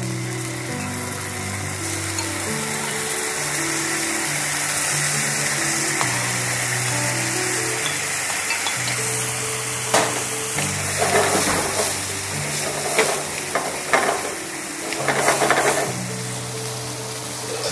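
Tomato concassé sizzling in a pan of hot olive oil and garlic. From about ten seconds in, a wooden spatula scrapes and stirs it in about five short strokes.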